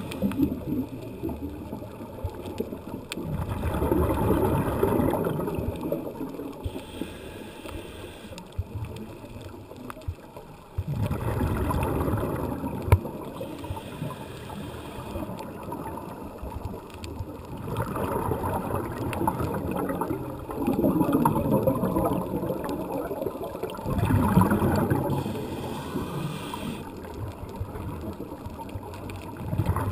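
Scuba exhaust bubbles rushing past an underwater camera housing, in about five bursts of two to three seconds each with quieter gaps between: the rhythm of a diver's breathing through a regulator.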